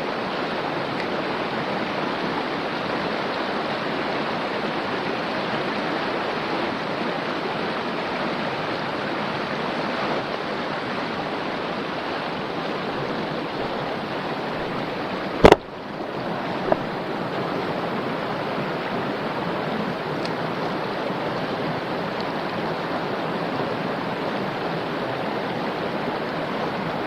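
Mountain stream water rushing steadily over rocks. A single sharp click about halfway through is the loudest moment, with a fainter click a second later.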